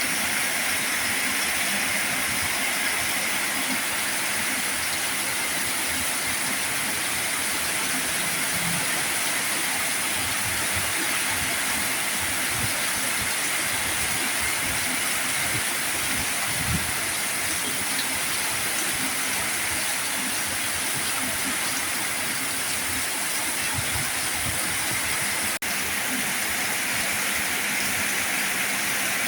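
Heavy rain falling steadily: a dense, even hiss of rain with a momentary dip about 25 seconds in.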